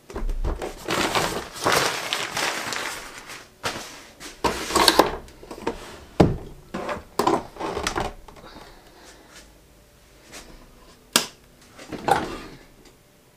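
Plastic bag rustling for the first few seconds as an overlocker is unwrapped, then scattered knocks and clicks as the machine is set down on a wooden tabletop and handled.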